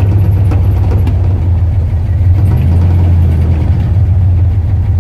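1974 Ford F-250's engine running steadily with a low, even drone.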